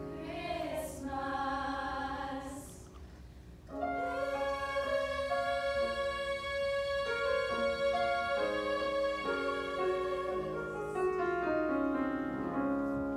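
Women's vocal group singing in harmony: a short phrase, a brief drop about three seconds in, then long held chords that shift step by step, with a falling line near the end.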